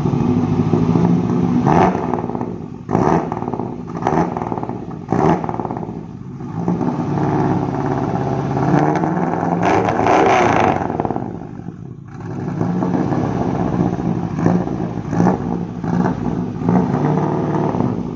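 Toyota Kijang engine revved through a newly fitted aftermarket header and dual-tip exhaust, loud: several quick throttle blips in the first five seconds, a longer rev that rises and falls away about ten to twelve seconds in, then an uneven idle with small blips.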